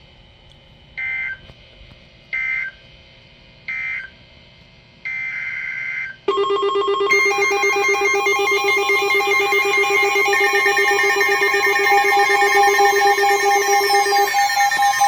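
Emergency Alert System digital data bursts: three short two-tone bursts about a second and a half apart, the end-of-message signal closing an alert, then a longer burst about five seconds in. From about six seconds, a loud, steady electronic alert tone takes over, several pitches held together like a ringtone, with high falling sweeps near the end.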